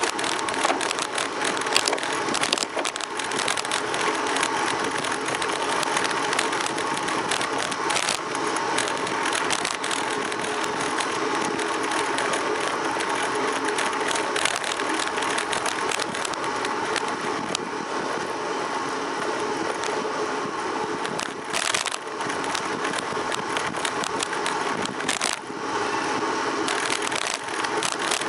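Ride noise picked up by a camera mounted on a Fuji Team road bicycle rolling along a paved street: a steady rush of wind and road noise with a constant rattle of the mount. A few sharper knocks come through, about eight seconds in and twice near the end.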